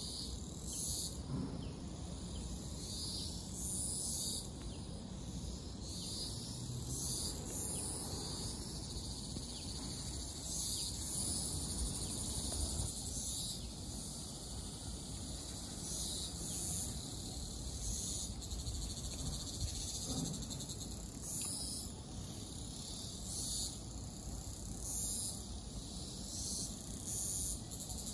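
Insects chirring in a high-pitched drone that swells in short pulses every second or two, over a low, even rumble.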